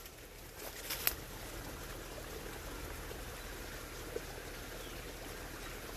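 Faint steady outdoor background hiss, with a couple of sharp crackles of dry twigs and brush about a second in as someone pushes through thick undergrowth, and one small tick a few seconds later.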